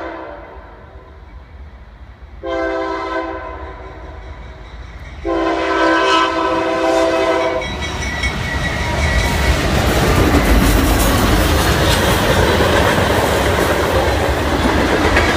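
Freight locomotive air horn sounding the end of a grade-crossing signal: a long note trailing off, a short blast, then a long blast. Right after it the Norfolk Southern locomotive passes close and loud, and its freight cars follow, rumbling and clicking over the rail joints.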